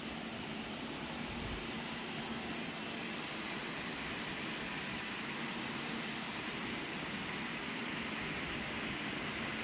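N-scale model freight train running along the track, a steady hiss with a faint low hum from its small motors and wheels on rail, a little louder from about two seconds in.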